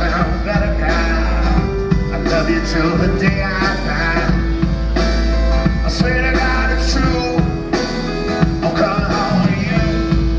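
Live band music: a man singing over strummed acoustic guitar and drums, played through the venue's PA.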